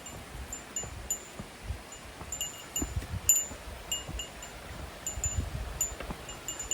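Short, high, chime-like ringing pings at the same two pitches, repeating irregularly several times a second, over low rumble of wind on the microphone.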